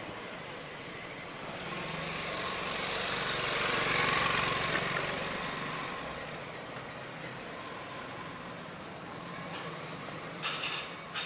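A motor vehicle passes close by, its engine and tyre noise growing to a peak about four seconds in and then fading away. A couple of short sharp knocks come near the end.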